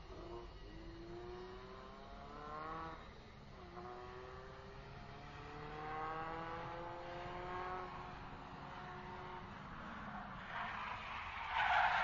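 Racing car engine accelerating, its pitch rising, dropping back about three and a half seconds in, then climbing again more slowly. Near the end a tyre skid squeal comes in and is the loudest sound.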